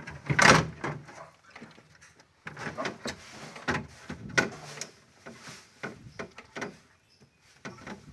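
Irregular knocks and clatter of refrigerator parts being handled, typical of drawers or a door being moved, with the loudest knock about half a second in.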